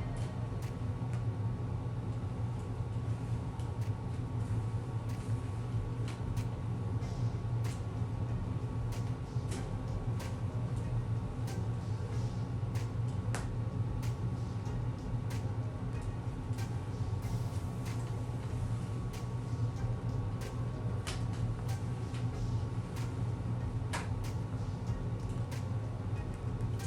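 Electric sewing machine running steadily with a low motor hum, stitching wig tracks, with scattered light clicks.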